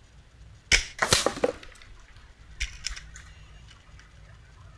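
Hatsan Breaker 900x .22 break-barrel spring-piston air rifle firing once, a sharp crack under a second in. A quick cluster of sharp clattering strikes follows, and a few lighter clicks come near three seconds in.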